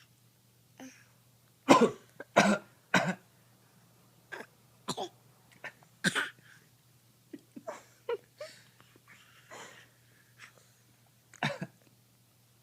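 A run of short, forced fake coughs, about a dozen spread over the stretch, the loudest ones in the first few seconds and a last sharp one near the end.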